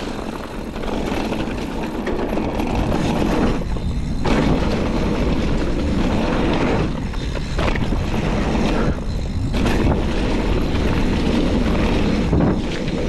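Trek Roscoe 8 mountain bike ridden fast down a dirt jump trail: tyres rumbling over the packed dirt under a steady rush of wind on the microphone. The noise dips briefly three or four times.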